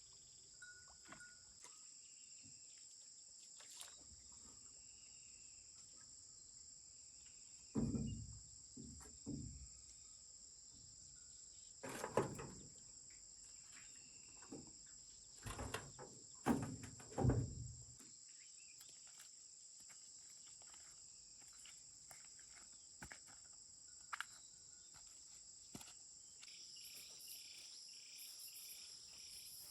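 Steady, high-pitched chorus of insects such as crickets. A handful of brief, louder noises break in about a quarter of the way through and over the following ten seconds, and a faster pulsing insect trill joins near the end.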